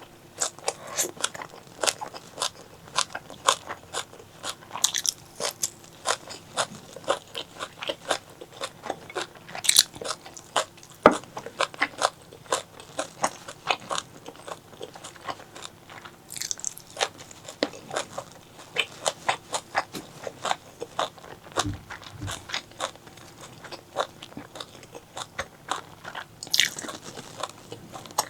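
Close-miked eating of spicy pork leg curry: rapid, irregular chewing with crunchy bites and wet mouth clicks, several a second, a few bites louder than the rest.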